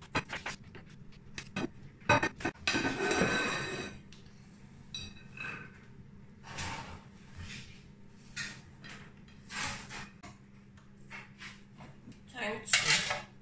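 Chef's knife tapping and chopping on a plastic cutting board as carrots are diced, with a longer scraping stretch about two to four seconds in, then scattered knocks of kitchen utensils. Near the end a spatula clatters against a stainless-steel pot.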